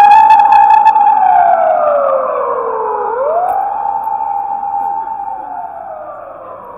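Emergency vehicle siren wailing: each cycle rises quickly, holds, then slowly falls, repeating about every four seconds. It grows steadily fainter as the vehicle moves away.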